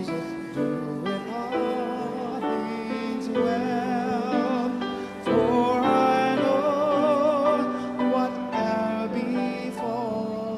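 Slow music with a singing voice holding long notes with vibrato, growing louder about halfway through.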